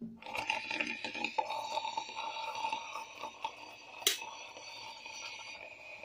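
Prestige drip coffee maker brewing: a steady crackling hiss that starts and stops abruptly, with one sharp click about four seconds in.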